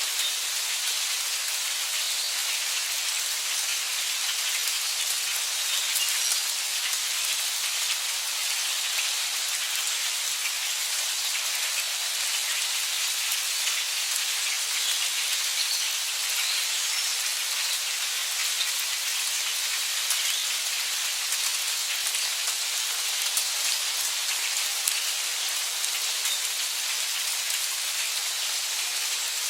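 Heavy rain falling steadily: a dense, even hiss of drops with fine scattered ticks of individual drops striking.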